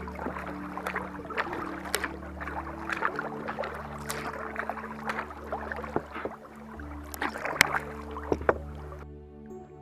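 Water rushing and splashing along the hull of a Perception Conduit 13 kayak being paddled, with irregular sharp splashes and drips from the paddle. The water sound cuts off abruptly about nine seconds in.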